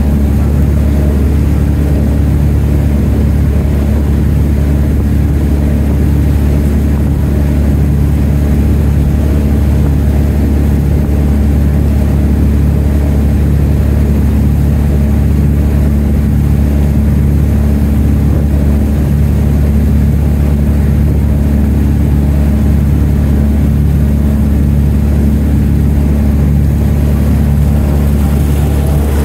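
Boat engine running steadily at cruising speed: a loud, even low drone that holds unchanged throughout.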